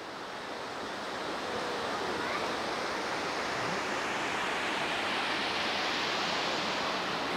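Steady rushing of a waterfall, a constant hiss of falling water that grows a little louder over the first couple of seconds.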